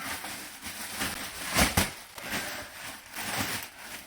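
PC case packaging being handled and pulled apart: rustling and crackling, with two dull knocks about one and a half seconds in.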